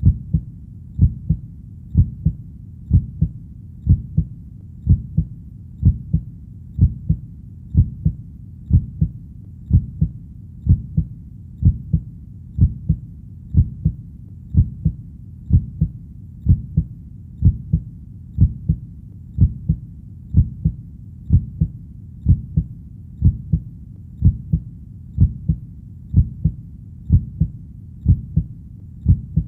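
Heartbeat: a steady, even lub-dub double thump about once a second, low and dull.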